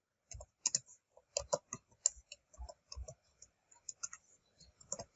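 Computer keyboard being typed on: a run of short, irregular key clicks, a few keystrokes a second, as a word is typed out.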